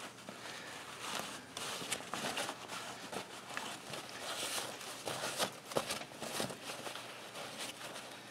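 A cloth shop rag rubbing and wiping over the top of a car battery, a run of irregular soft scuffs and rustles.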